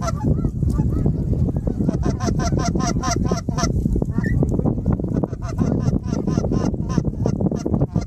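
Geese honking: many short, rapid, overlapping honks from a flock, over a steady low rumble.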